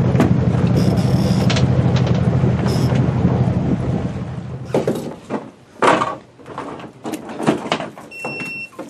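A boat engine runs steadily with a low hum and some wind. It stops after about four and a half seconds, giving way to scattered knocks and thumps from handling fish on the boat. A short high beep sounds near the end.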